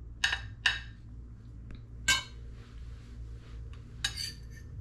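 A spoon or fork clinking against a dish of fried rice three times, then a short scrape about four seconds in, as a bite is scooped up to taste.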